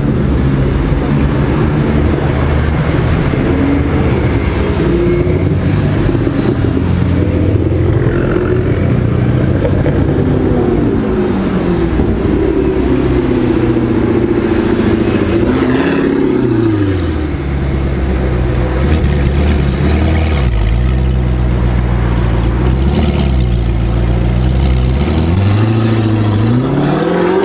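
A car engine running under way, its pitch shifting with throttle and gear changes: falling off about halfway through, then dipping and climbing again near the end.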